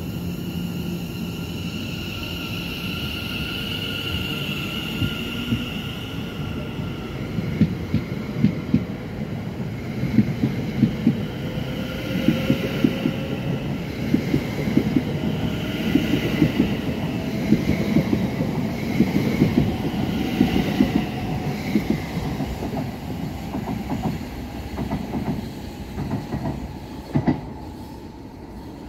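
Class 701 Aventra electric multiple unit pulling away from a station. Its traction motors whine in a pitch that climbs as it gathers speed, while the wheels click rhythmically over rail joints as the carriages pass. The sound fades near the end.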